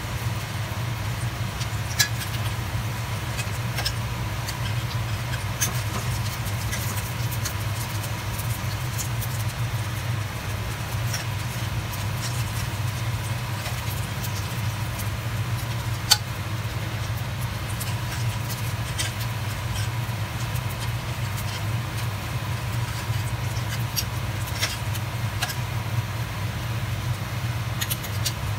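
Samosas shallow-frying in hot oil in a wok, with sparse crackles and pops, over a steady low hum. A couple of sharp clicks of metal tongs against the wok.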